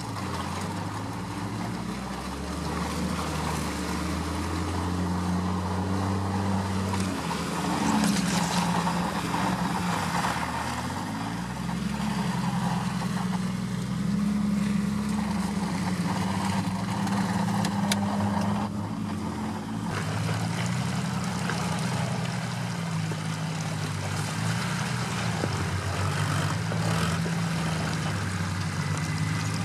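Off-road 4x4's engine running under load on a trail, its note rising and falling as the throttle changes.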